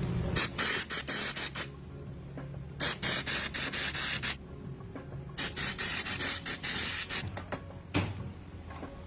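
Factory machinery: three hissing bursts of a second or so each, with sharp clicks among them, over a steady low hum.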